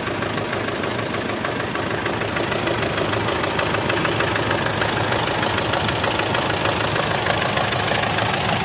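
Mitsubishi Strada Triton's four-cylinder common-rail diesel idling slightly unevenly, with a fast tak-tak-tak ticking running through it. The mechanic takes it for a leaking injector sealing ring letting oil into the combustion chamber.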